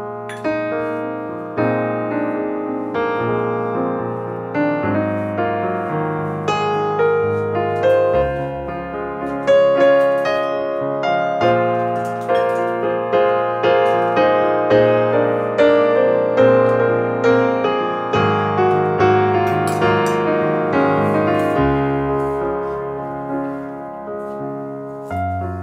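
Background solo piano music: notes and chords struck about once a second and left to ring.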